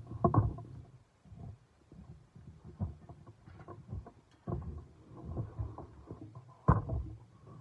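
Metal spatula and tongs knocking and scraping in a frying pan as fried rice crackers are lifted out onto a plate, in irregular clicks and clatters with a sharp knock about a second before the end.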